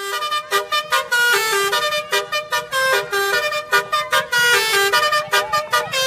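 Basuri 'telolet' musical bus horn playing a quick tune: a fast run of short, bright horn notes jumping between pitches.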